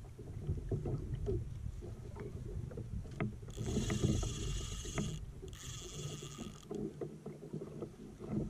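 Water and wind around a small kayak with light knocks of gear. About three and a half seconds in, a spinning reel buzzes in two short spurts of about a second each while a hooked skipjack tuna is being fought.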